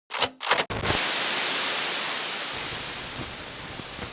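Electronic static noise: a few short crackling glitches, then a loud steady hiss that slowly fades.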